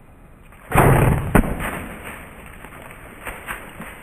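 A sudden loud bang about a second in, followed by a sharp crack about half a second later, then fading away over a second or so.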